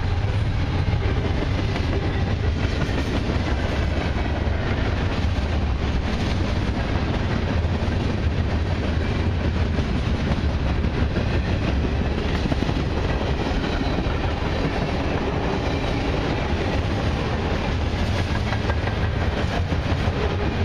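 Freight cars of a long freight train rolling past: tank cars, boxcars and lumber-laden flatcars, with a steady, heavy rumble of steel wheels on rail and the clickety-clack of wheels over the rail joints.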